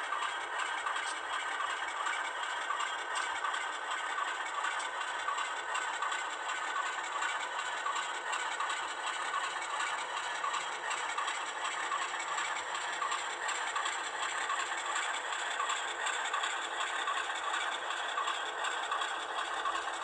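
HO scale model freight train rolling past, its gondola cars running along the track with a steady fine rattle of wheels on rail.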